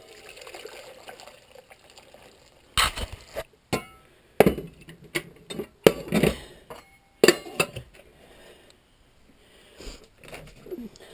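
A series of sharp clinks and knocks, about eight in all, from a pot or kettle of hot water being handled, bunched in the middle of the stretch over a faint hiss.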